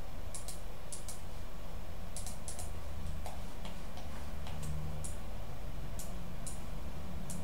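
Computer mouse buttons clicking, a light tick, often doubled, about once a second, over a steady low hum.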